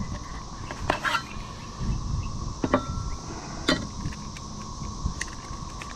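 Steady outdoor insect drone, with a few brief sharp chirps about one, three and four seconds in, over a low rumble of wind on the microphone.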